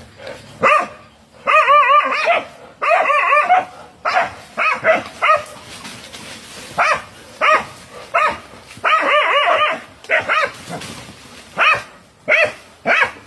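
Several dogs barking repeatedly at a snake, short barks coming every half second or so, with a few longer wavering yelps among them.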